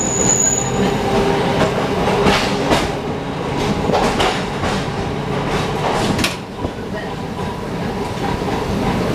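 Birney streetcar rolling along its track, heard from inside the car: a steady rumble of steel wheels on rail, with a run of sharp clicks and knocks in the middle. A thin steady high tone joins at about six and a half seconds.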